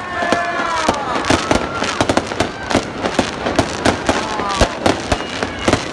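Fireworks display going off: a rapid, irregular series of bangs and crackling pops, several a second.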